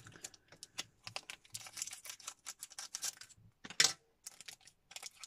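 Foil booster-pack wrapper being opened and handled: a quick run of small crinkles and clicks, with one louder crackle about two-thirds of the way through.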